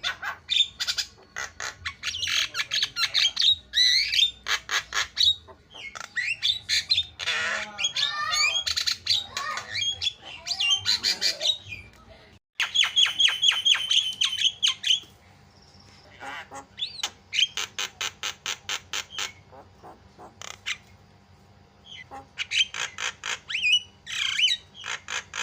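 Javan myna (jalak kebo) singing in a loud, chattering run: harsh squawks, whistled glides and quick trains of repeated notes, with a short break about halfway through.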